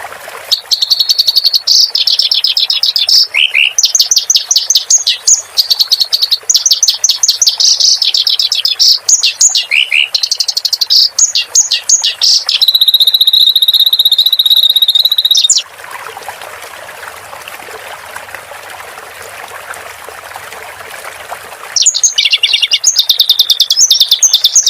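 Kerak basi songbird singing loudly in rapid chattering runs of repeated notes, ending in one long steady high note. About sixteen seconds in the song stops, leaving a steady trickle of running water for several seconds, before the singing starts again near the end.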